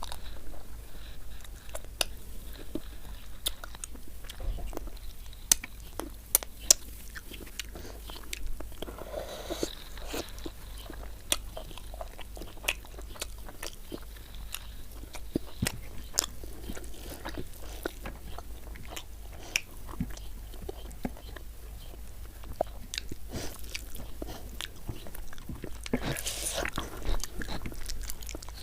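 Close-miked mukbang eating: a mouth chewing rice and chicken gravy, with wet clicks, smacks and crunchy bites. A few louder crunches come about six seconds in. A low steady hum runs underneath.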